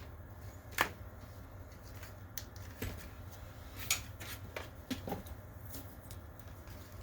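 Scattered light clicks and taps, about eight of them at uneven intervals, over the steady low hum of a running DLP projector with its top cover off.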